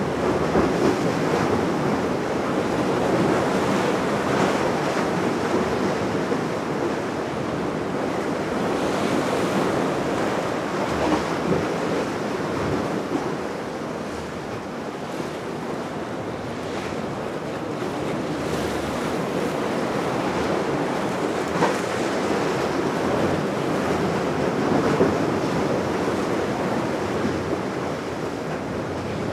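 Steady rush of sea water and wind buffeting the microphone, swelling and easing gently, with no distinct engine tone.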